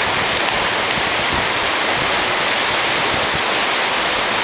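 Swollen, fast-flowing floodwater rushing steadily, a continuous even roar with no distinct impacts.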